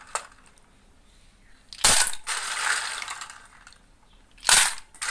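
Kitchen utensils knocking and scraping, twice: a sharp knock followed by about a second of rattling scrape.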